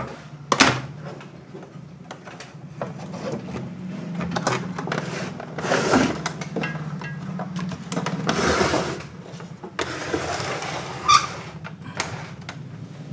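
Scattered clicks, knocks and rustles of hands handling an opened CRT television's chassis and tube neck, over a steady low hum.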